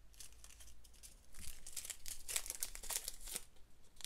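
Small plastic bags of diamond-painting drills crinkling as they are picked up and handled, a run of dense rustles from about a second and a half in.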